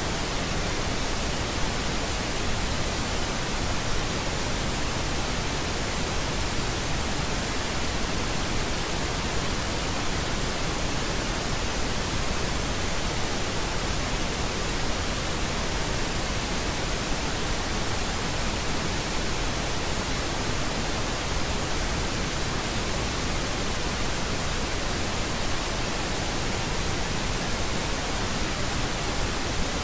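Steady pink noise: an even, unchanging hiss spread across the whole range, with no events.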